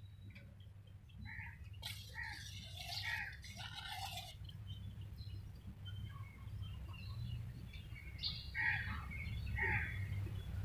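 Birds chirping in two bouts of short calls, faint, over a low steady hum.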